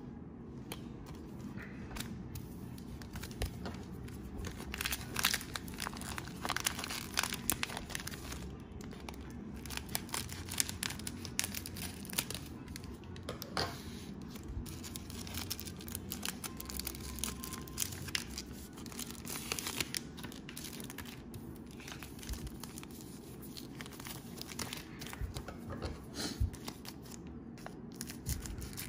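Cellophane wrapper of a Panini Prizm cello pack of trading cards crinkling and tearing as it is handled and opened, with many short, irregular crackles.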